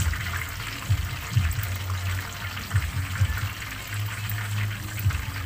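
Pork belly deep-frying in a wok of hot oil: steady sizzling and bubbling, broken by several sharp pops and crackles. A low hum runs underneath.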